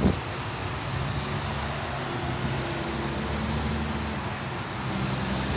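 Steady highway traffic passing under and beside an overpass, with a heavy vehicle's low engine hum and a thin high whine that rises and falls about three seconds in. A short knock right at the start.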